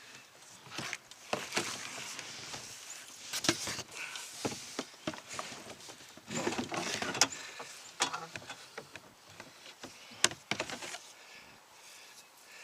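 Irregular knocks, clunks and scraping against a kayak's hull, with rustling, as a person climbs in and settles into the seat.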